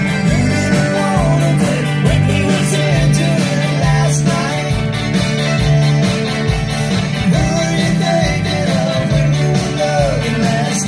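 Live Tex-Mex band playing through a PA at concert volume: electric guitars, bass, drums and button accordion, with a man singing lead. Heavy bass notes carry the rhythm under the melody.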